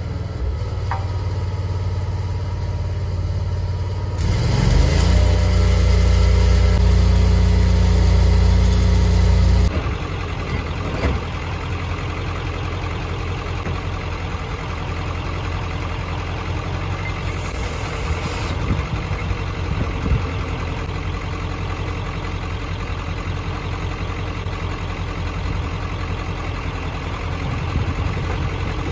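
Engine of a mobile welding rig idling steadily. From about four seconds in it runs louder, with a hiss over it, for about five seconds, then drops back to idle.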